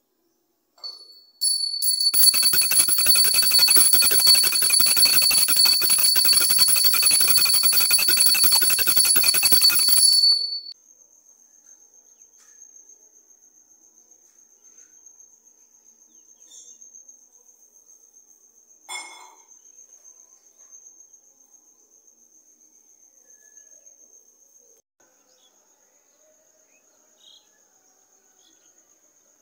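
A small puja handbell rung rapidly and continuously for about eight seconds, then cut off sharply. After it, a faint steady high cricket trill and a single click.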